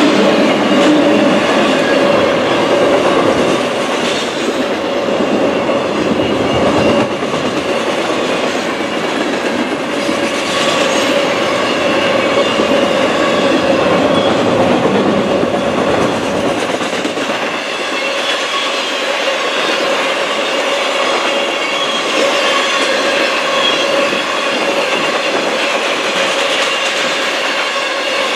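Cars of a long intermodal freight train rolling past at close range: a steady rumble of steel wheels on rail with occasional clacks, and a steady high-pitched wheel squeal running through it.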